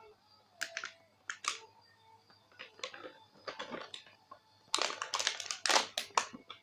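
Irregular rustling, crinkling and clicking of plastic toys and packaging being handled and opened, with a louder burst of crinkling about five seconds in.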